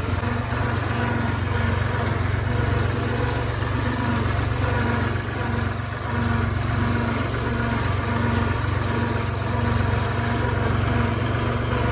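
Tractor diesel engine running steadily under way, heard from the driver's seat, with a low hum and a regular pulsing throb.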